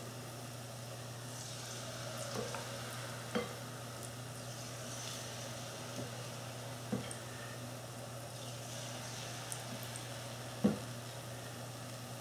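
Spoonfuls of salt-cod fritter batter deep-frying in oil at about 350 °F, a steady sizzle. A few light knocks of the metal spoon come through it, the sharpest near the end.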